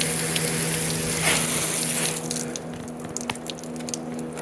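Spray hiss of a finish being sprayed onto a freshly sawn black walnut slab to pop the grain, stopping about two seconds in, followed by a few light clicks. A steady low hum runs underneath.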